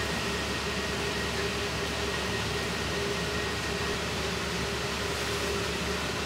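Steady rushing noise of a commercial wok range's gas burner heating oil in a wok, mixed with the hum of kitchen ventilation, with a faint steady tone running through it.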